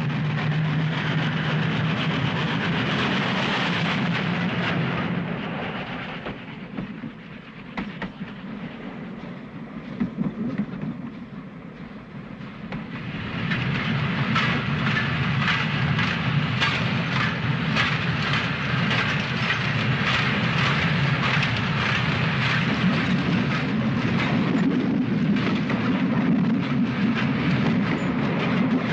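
Train running on rails: a steady running noise that eases off about a fifth of the way in, then wheels clicking rhythmically over rail joints from about halfway on.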